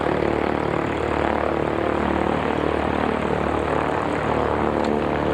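Light propeller airplane's piston engine running steadily at a constant speed, with the propeller noise holding an even pitch.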